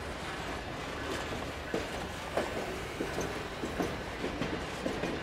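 Covered gondola cars of a freight train rolling past: a steady rumble of steel wheels on the rails. From about a second in come irregular clicks and knocks, roughly three a second, as the wheels cross the rail joints.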